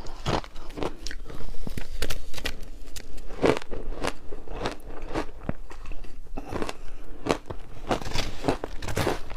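Frozen passion fruit and matcha ice being bitten and chewed: a steady run of irregular, sharp crunches.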